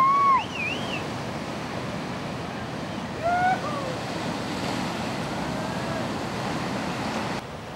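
Ocean surf breaking on a beach, a steady rushing wash, with short high cries over it near the start and again about three seconds in. The sound drops abruptly in level just before the end.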